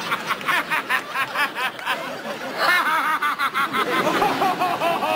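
A young man laughing hysterically in rapid, pitched 'ha-ha-ha' pulses, about six a second at first. Later the laugh turns into longer high whoops that sink in pitch towards the end.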